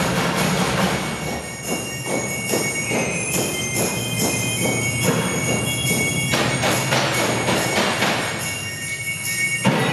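Percussion ensemble striking found objects such as plastic buckets, metal trash cans and barrels, in a rhythm of many sharp hits, with ringing metallic tones held over them and a loud accented hit near the end.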